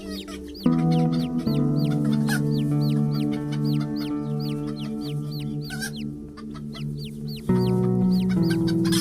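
A flock of chickens peeping, a dense stream of short high-pitched calls several a second, over background music of sustained chords that comes in under a second in.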